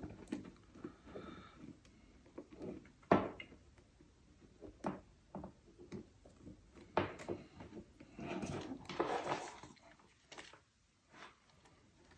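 Small parts being handled on a workbench: scattered light clicks and knocks, one sharper knock about three seconds in, and a stretch of rustling and rummaging around eight to nine seconds in.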